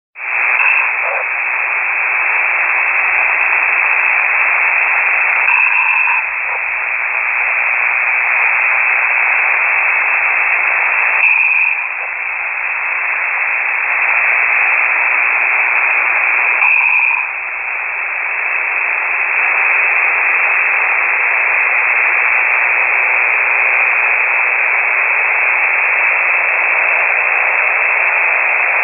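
Amateur radio single-sideband signal received on a KiwiSDR web receiver: loud, steady hiss and static held to a narrow voice band. The sound shifts briefly about every five and a half seconds, like slow breathing, fitting a ham's open microphone carrying his snoring onto the air.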